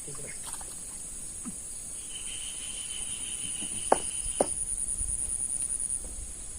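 Insects droning in a steady high-pitched chorus that pulses rhythmically for a couple of seconds in the second half. A second steady whistling tone joins for about two seconds midway, and two sharp clicks about half a second apart fall in the middle.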